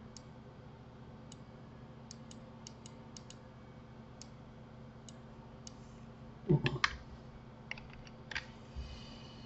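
Computer mouse and keyboard clicking: scattered light clicks, some in quick runs of two or three, with one brief louder thump about two-thirds of the way through. A steady low electrical hum sits under it all.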